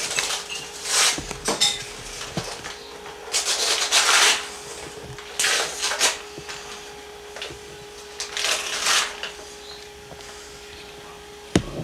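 Rustling and handling noises in several short bursts, like paper and packaging being moved about, over a faint steady hum, with a sharp knock near the end.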